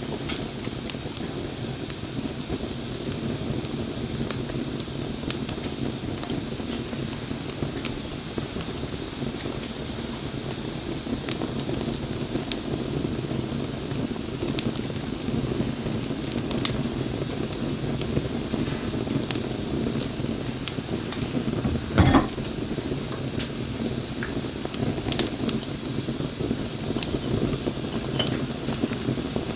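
Wood fire burning: a steady low rush of flame with scattered sharp crackles and pops, and one louder pop about three-quarters of the way through.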